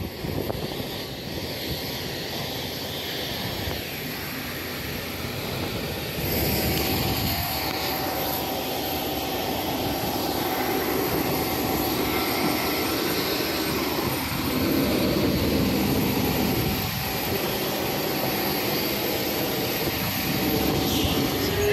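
Jet airliner noise on an airport apron: a steady turbine rush with a thin steady whine, growing louder about six seconds in.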